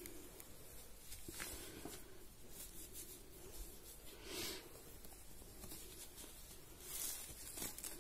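Faint rustling and rubbing of hands smoothing adhesive tape over the sole of a foot, with a few soft brushing swishes.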